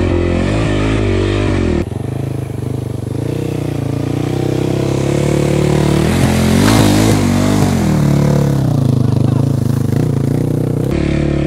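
Dirt bike engine running at low speed over rocky ground, its revs rising and falling as the rider feeds throttle. It revs up hardest about two thirds of the way in, as the bike climbs a rock.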